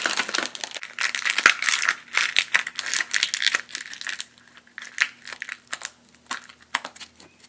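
Plastic packaging crinkling and rustling for about four seconds, then a scattering of separate sharp clicks and taps as a small plastic Easter egg is handled.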